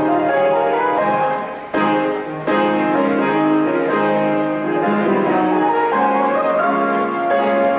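Piano music, with a brief dip in loudness about two seconds in.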